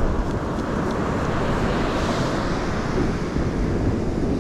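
Strong wind buffeting the microphone over breaking surf, a steady rushing noise with no distinct events.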